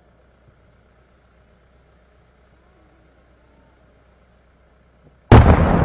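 Large aerial firework shell bursting with one sudden, very loud bang about five seconds in, its echo trailing away slowly; before it only a faint low background while the shell climbs.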